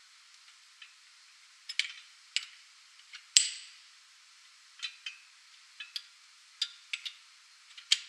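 Steel jaw arms of a Wallmek HSC2018 hydraulic spring compressor being repositioned by hand: about a dozen sharp metal clicks and clinks, irregular and separate. The loudest is a ringing clank about three and a half seconds in.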